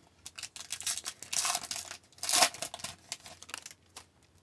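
Foil wrapper of a 2019-20 Upper Deck Series 1 hockey card pack torn open and crinkled, in several short rustling bursts with the loudest tear about two and a half seconds in. Lighter rustles and clicks follow as the cards are slid out of the pack.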